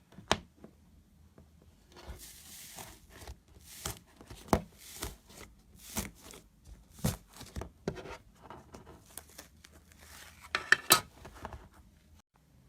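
Slime being squeezed and poked by hand: an irregular run of sticky clicks, pops and crackles, with a cluster of sharp pops about ten and a half seconds in.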